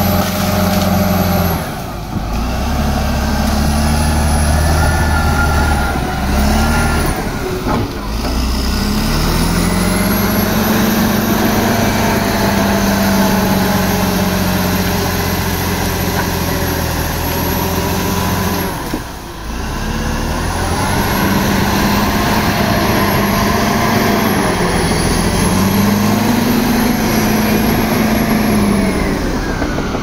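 Heavy earthmoving machine's diesel engine running hard, its pitch rising and falling again and again as it revs under load. The sound drops briefly about 2, 8 and 19 seconds in.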